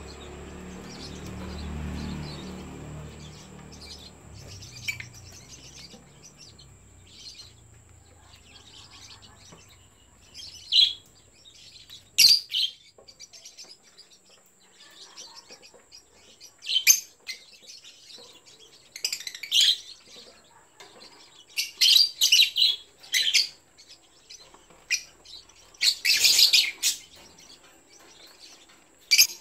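Yellow lovebirds chirping: short, sharp high-pitched calls, a few scattered at first, then coming in quick clusters and louder in the second half. A low rumble sounds under the first few seconds.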